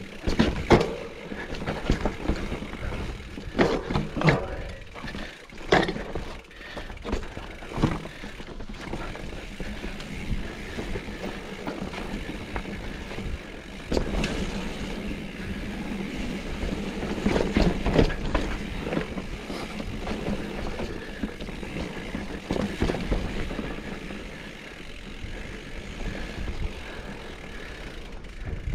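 Mountain bike riding down a steep, rough trail: continuous tyre and trail noise, with the bike knocking and rattling over bumps. The knocks come thick and sharp in the first eight seconds and again about halfway through.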